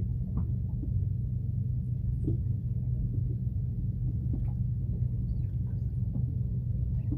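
Fishing boat's engine idling, a steady low drone.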